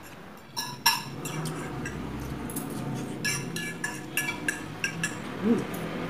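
Metal forks and spoons clinking against plates as two people eat: a string of sharp, ringing clinks, the loudest about a second in.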